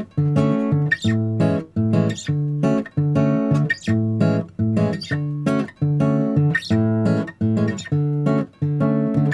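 Background music: a rhythmic strummed acoustic guitar with chords struck at a steady beat.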